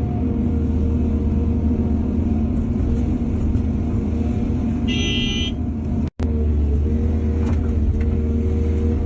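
Heavy diesel engine of an excavator running steadily. A brief high-pitched tone sounds about five seconds in, and the sound cuts out for an instant just after six seconds.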